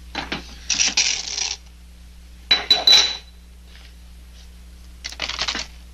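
Hard sweets clattering and clinking as they are handled and dropped, in three short rattles; the middle one ends in a bright ring.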